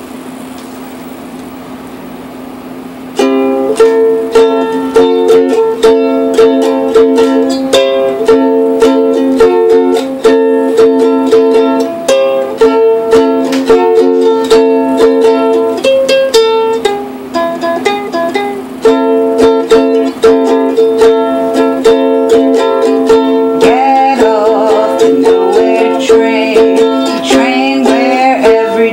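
A strummed acoustic string instrument, most like a ukulele, playing a steady chord accompaniment that starts about three seconds in, after a low steady hum.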